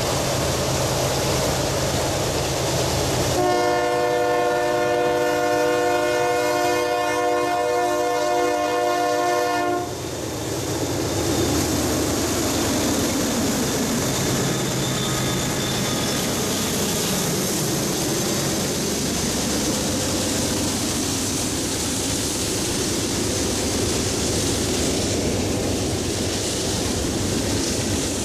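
Freight train diesel locomotive sounding one long horn blast of several notes at once, lasting about six seconds. As the horn stops, the engine drone gives way to the steady rumble and clatter of the train rolling past.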